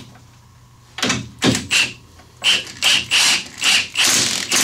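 Ratchet wrench being worked in quick back-and-forth strokes, tightening a sway bar link nut. The ratcheting starts about a second in, runs at about two or three strokes a second, and turns into one longer unbroken run near the end.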